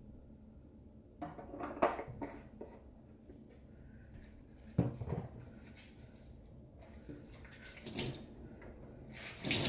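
Kitchen tap splashing water into a stainless-steel sink in short bursts, with a single knock about halfway through. Near the end the tap comes on strongly and keeps running.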